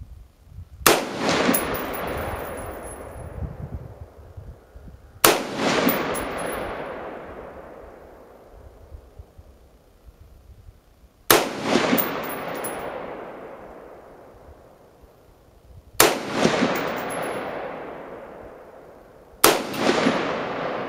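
Five single shots from a DPMS M4-style AR-15 carbine, fired slowly a few seconds apart, each followed about half a second later by a sharp echo and a long fading rumble.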